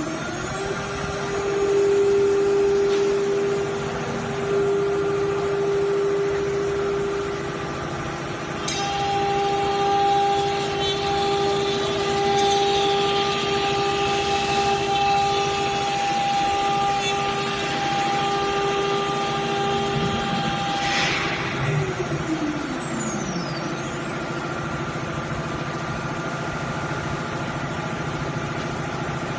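Electric spindle of a 1325 automatic-tool-change CNC router reaching full speed just after the start and running with a steady high whine while its bit cuts the board, with rougher cutting noise from about nine seconds in. A short hiss comes about 21 seconds in, then the spindle winds down with a falling whine, leaving a steady machine drone.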